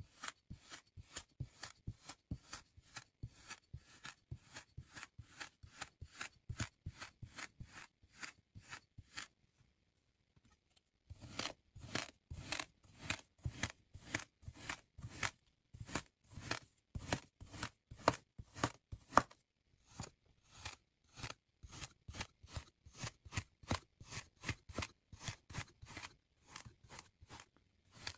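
Kinetic sand being cut and stamped with metal tools: a round tube cutter punching circles, then a kitchen knife slicing through. Quick, crisp crunches come several a second, with a pause of about two seconds a third of the way in.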